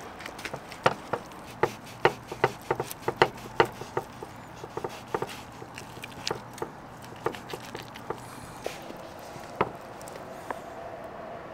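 Long slicing knife cutting through sauce-glazed pork spare ribs on a wooden cutting board: a quick run of sharp knocks as the blade meets the board, thinning to a few scattered knocks.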